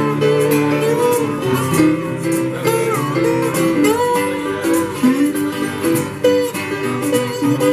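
Live acoustic band playing an instrumental passage: acoustic guitars and keyboard, with a melodic lead line that bends between notes over sustained chords.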